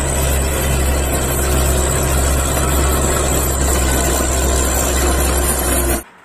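Caterpillar crawler bulldozer's diesel engine running steadily under load while pushing dirt, a deep, even hum; it cuts off suddenly near the end.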